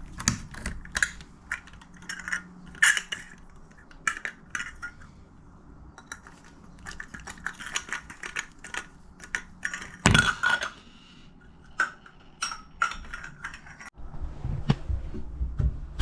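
Irregular small clicks and clinks of shower slide-rail parts, brackets and screws being handled and fitted by hand, with one louder knock about ten seconds in.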